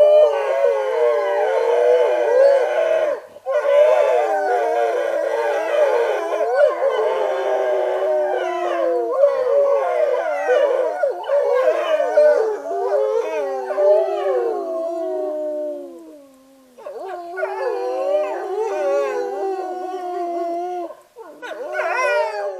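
A pack of wolves howling in chorus, several voices overlapping with long rising and falling howls. The chorus breaks off briefly about three seconds in, fades out around sixteen seconds, starts again a second later, and ends with a short final burst.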